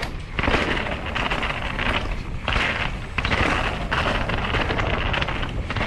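Mountain bike riding fast down wet, rocky singletrack: tyres hissing and rumbling over rock and wet ground, with the bike rattling and wind rushing over the microphone. The hiss comes in surges, easing briefly about two seconds in and again near the end.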